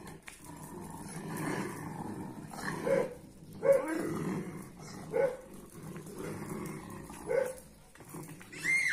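Kangal shepherd dogs growling low and long in a face-off, with four short barks and a brief high whine near the end.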